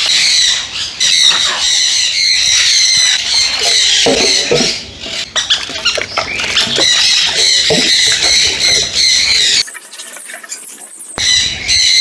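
A flock of aviary parrots squawking and chattering together, a continuous high-pitched din, while water is stirred by hand in a plastic bucket.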